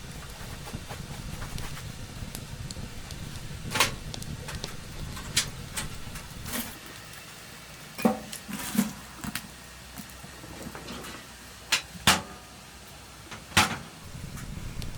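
A series of sharp, irregular knocks and clacks, about eight in all, over a low steady rumble.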